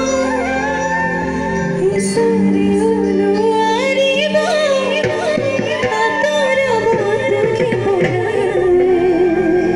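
A woman singing an Assamese song live with a band, amplified through a PA system. Her voice slides and wavers on ornamented notes over steady held low notes.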